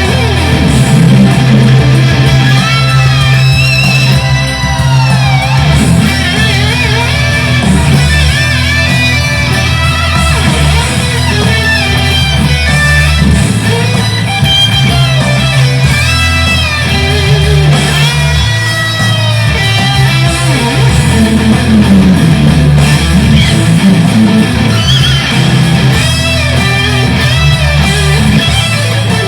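Fender Stratocaster electric guitar through a Boss Katana 100 amplifier, playing an improvised lead full of pitch bends and slides over steady, sustained low notes.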